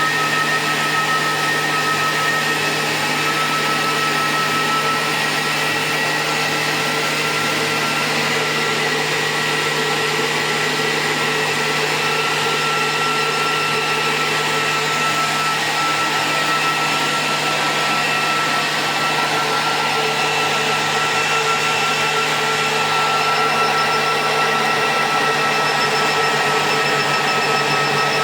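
Steady motor-and-fan whir with a constant high whine, from a repaired medical device with a 2000-watt power supply running under test.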